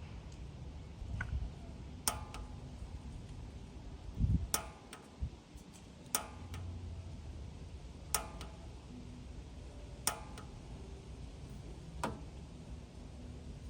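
Pilot igniter on a Rheem Fury gas water heater being clicked about every two seconds while the pilot knob is held down to light it, each a sharp snap with a brief ring. One low thump about four seconds in.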